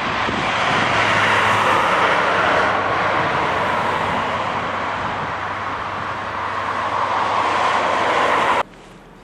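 Heavy construction machinery running on a crane barge: a loud, steady rushing roar with a faint low hum underneath, cutting off abruptly near the end.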